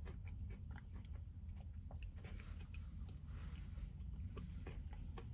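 Faint chewing of a mouthful of thin-mint frozen custard with crunchy cookie pieces, many small crunching clicks scattered throughout.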